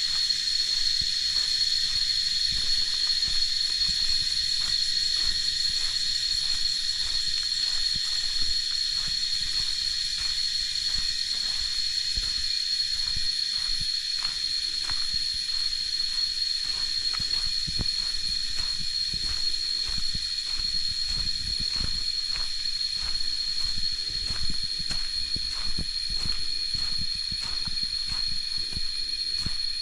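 A steady, high-pitched insect drone, typical of a tropical forest, with footsteps crunching on leaf litter throughout.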